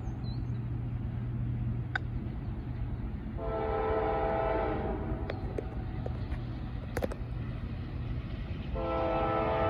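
Locomotive five-chime K5LLA air horn sounding from an approaching train: one blast of about a second and a half a few seconds in, then another starting near the end and still going. A low steady rumble runs underneath.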